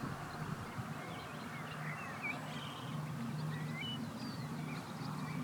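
Birds chirping and peeping in short, scattered high calls over a low steady hum.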